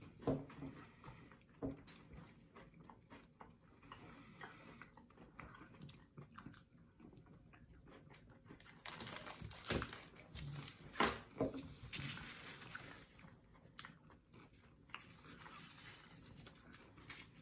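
People chewing and crunching pieces of a Kit Kat wafer bar: soft scattered crackles and clicks, with a few louder crunchy bursts around the middle.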